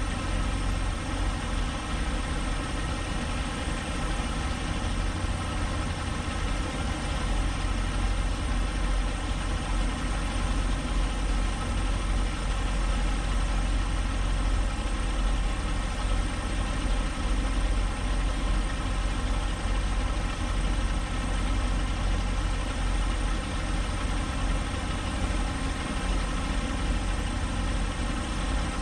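Semi-truck's diesel engine idling steadily, heard from inside the cab.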